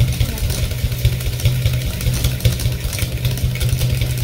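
A small motor or engine running steadily with a low, rapidly pulsing hum.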